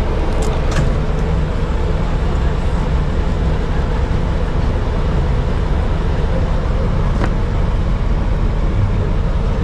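Ice cream van's engine running steadily, a constant low drone, with a few faint clicks over it.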